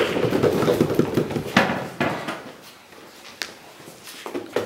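Audience applause that dies away over about two seconds, leaving a quiet room with a couple of single knocks.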